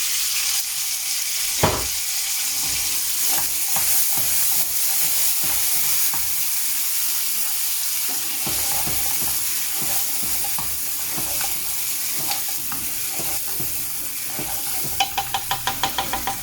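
Frozen green peas frying and sizzling in a pan of oil, ghee and curry gravy, stirred, with scattered scrapes and clicks against the pan. A fast run of ticks comes near the end.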